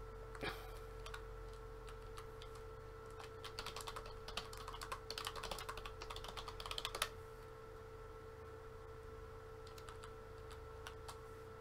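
Typing on a computer keyboard: a quick run of keystrokes for about four seconds in the middle, then a few single clicks near the end, over a faint steady hum.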